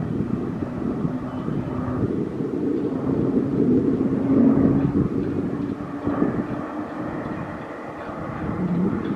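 Turboprop engine and propeller drone of PZL-130 Orlik aircraft flying past, swelling to its loudest about halfway through and then easing off.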